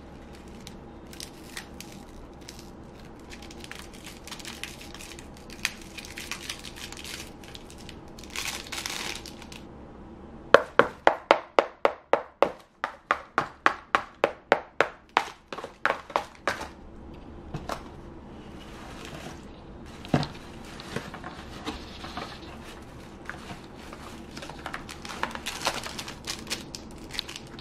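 A mini hammer tapping a hollow candy-melt chocolate tooth, about twenty quick sharp taps at roughly three a second. Crinkling of paper ribbon shreds comes and goes, with a single sharper knock partway through.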